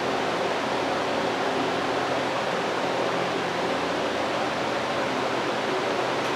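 Steady fan-like rushing noise with a faint low hum underneath, from a hobby CNC router running a diode laser module.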